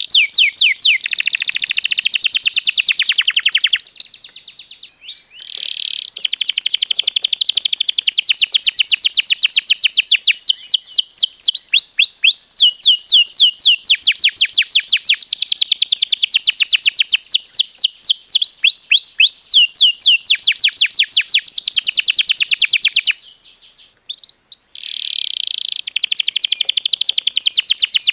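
Canary singing a long, fast song of rapid repeated trills and chirps, broken by two short pauses.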